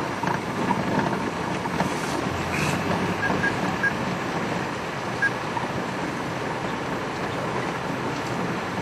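Open game-drive vehicle driving along a sandy dirt track: steady engine and road noise.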